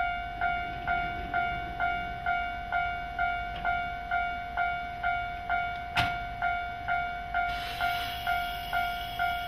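Japanese railway level-crossing warning bell ringing steadily, about two sharp strikes a second. A single sharp knock comes about six seconds in, and a steady air hiss from the standing electric train starts about a second and a half later.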